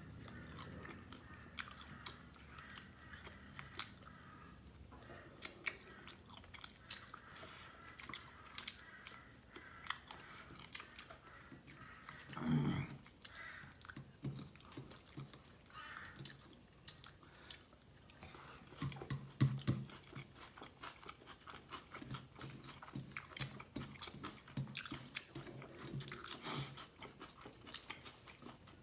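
Close-miked chewing, with wet mouth clicks and smacks from a person eating beef biryani (tehari) and egg korma. The clicks are irregular, and a louder chew or crunch comes about twelve seconds in, with a few more around twenty seconds.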